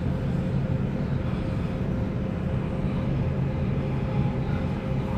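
Steady running rumble heard inside a Sydney Trains Waratah Series 2 electric passenger car in motion through the airport line tunnel, with a thin whine held at one pitch over the rumble.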